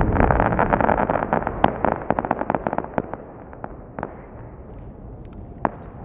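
Crackling from the bursting stars of a large 'Niagara Golden' sky shot: a dense spatter of sharp pops that thins out and fades over about four seconds, with one more pop near the end.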